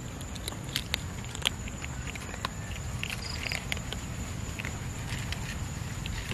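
Several cats eating dry kibble from a metal tray: irregular crisp crunches and small clicks, many overlapping.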